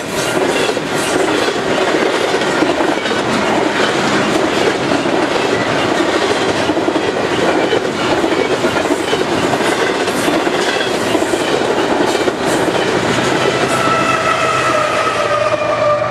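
Double-stack container train's well cars rolling past close by: a steady rumble with the clatter of wheels over rail joints. About three seconds before the end a steady high whining tone comes in under it as the last cars go by.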